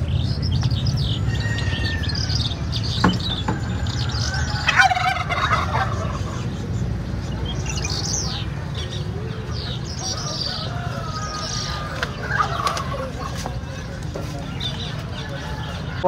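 Many caged birds chirping and calling over one another, with a few lower, louder calls among the high chirps and a steady low rumble underneath.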